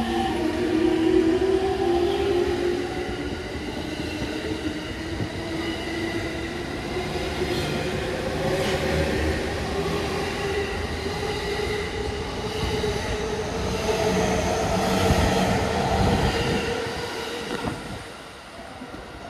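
E231-1000 series electric commuter train accelerating away, its inverter-driven traction motors whining in several tones that climb slowly in pitch over the rumble and clatter of the wheels on the rails. The sound drops off near the end as the train draws away.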